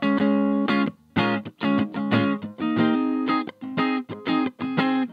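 Electric guitar played through a 2-watt Little Rebel kit amp into a Jensen CR8 speaker, chords struck in a choppy rhythm with a brief break about a second in. The amp runs with its clipping LEDs removed, giving a mellower drive without hard clipping.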